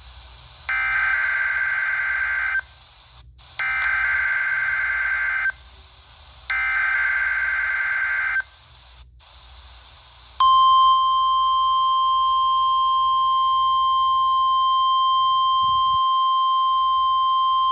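Three bursts of EAS SAME header data, each about two seconds long with a second's gap between them, then from about ten seconds in the steady 1050 Hz NOAA Weather Radio warning alarm tone, held continuously. This is the start of a Required Weekly Test, played through a weather radio receiver.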